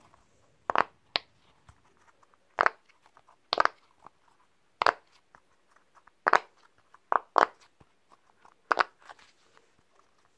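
Bubbles of a silicone pop-it fidget toy being pressed on its loud side: about ten sharp pops at uneven spacing, roughly one a second, sometimes two in quick succession.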